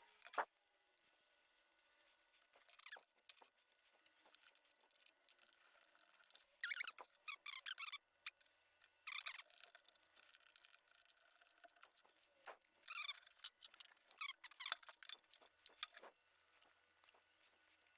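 Faint hand-work on wiring: scattered small clicks and short scratchy, squeaky rustles of wires and a relay module being handled and connected, in several bursts through the middle of the stretch.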